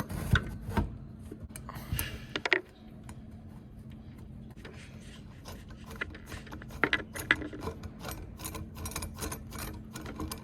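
Small hand-tool and hardware clicks and rattles from work on an exit sign's mounting and wiring: a few knocks at first, then rapid irregular clicking, busier in the second half, over a steady low hum.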